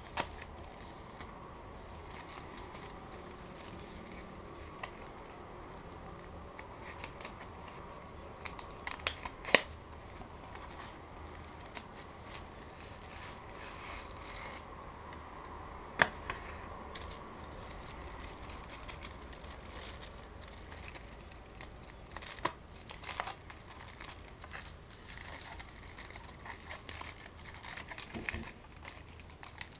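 A chocolate bar's cardboard sleeve and foil wrapper being opened by hand. There are two sharp snaps, about ten and sixteen seconds in, as the cardboard flap is worked open, then the foil crinkles and rustles as it is unfolded near the end.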